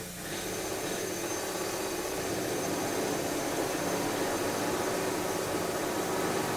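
Construction machinery running with a steady mechanical drone, with a faint high-pitched whine coming in just after the start.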